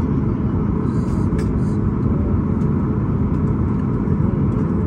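Steady low rumble heard inside the cabin of a Boeing 737 MAX 8 airliner on the ground, its CFM LEAP-1B turbofan engines at idle before takeoff. A few faint clicks about a second in.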